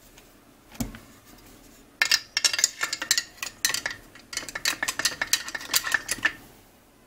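OTIS Star Chamber cleaning tool in a rifle's upper receiver: one knock about a second in as it goes in. From about two seconds in it is turned clockwise in the star chamber area, scraping out fouling, with a quick, irregular run of metallic clicks and scrapes that stops a little after six seconds.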